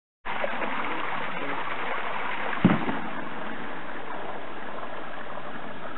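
Steady rush of a small stream's water running out of a culvert pipe, cutting in suddenly just after the start, with a single thump about two and a half seconds in.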